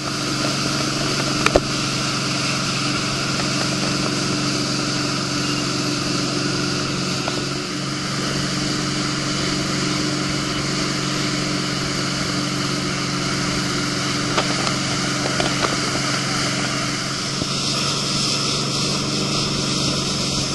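Tow boat's engine running steadily at towing speed, heard from aboard the boat, under a steady rushing hiss. A brief double knock sounds about a second and a half in.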